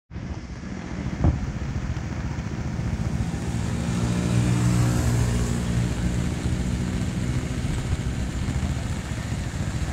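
A motor vehicle's engine passing along a flooded road, its hum building to its loudest around the middle and then fading, over a steady wash of noise. A single sharp knock about a second in.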